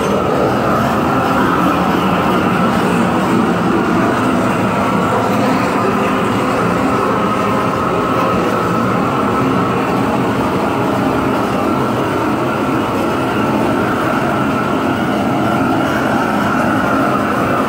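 Long-wand propane weed-burner torch burning steadily: a loud, constant rushing noise of the flame that holds at one level throughout.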